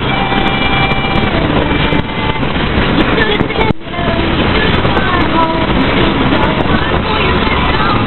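Steady rush of wind and road noise from a car driving at highway speed, heard from inside. The noise dips briefly just under four seconds in.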